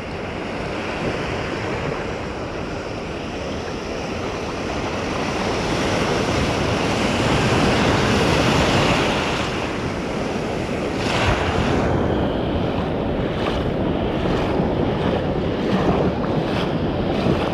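Breaking surf washing in around the legs, swelling to its loudest about halfway through, with wind buffeting the microphone. A few short light knocks come in the second half.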